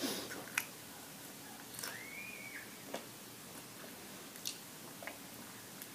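Quiet eating sounds from a McDonald's meal: soft chewing with scattered small clicks and packaging noises, and a short squeak that rises and falls about two seconds in.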